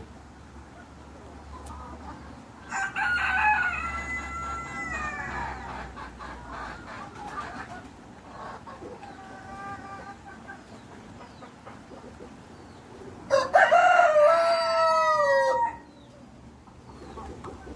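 A rooster crowing: one crow about three seconds in, a fainter one in the middle, and a louder crow near the end that drops in pitch as it finishes.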